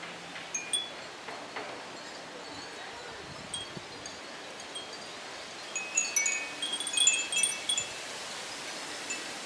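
Japanese wind chimes (fūrin) tinkling in the breeze: scattered single chimes at first, then a dense cluster of chimes ringing together about six to eight seconds in, over a light hiss of wind.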